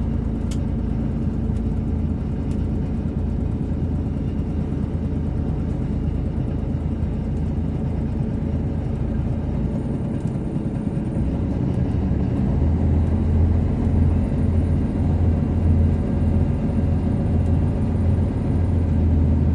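Bus engine and road noise heard from inside the passenger cabin: a steady low rumble that grows louder about two-thirds of the way in, with an uneven low throb.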